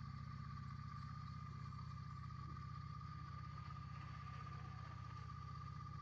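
Motorcycle engine running at a steady pitch, heard faintly as a low hum with a thin, steady high whine above it.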